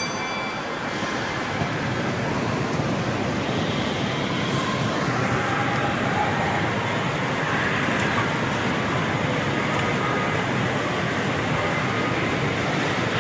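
Steady, loud din of an indoor amusement centre around a bumper car rink: the mixed noise of rides, arcade machines and people, with no single sound standing out.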